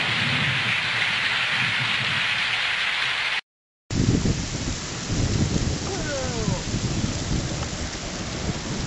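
A steady downpour of rain on an old film soundtrack, cut off abruptly about three seconds in. After a brief gap, a hailstorm comes in on a handheld camera's microphone: a steady hiss of falling hail and rain with low, irregular rumbling underneath.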